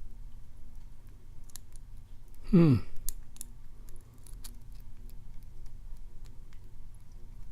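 Faint scattered metallic clicks of a lock pick and tension wrench working the pins of a 5-pin brass padlock cylinder. About two and a half seconds in, one short falling squeak is the loudest sound.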